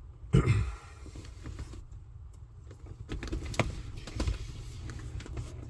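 Scattered light knocks and clicks of a small speaker box being handled and pressed into place under a car dashboard, with a sharper click about three and a half seconds in, over a low steady hum.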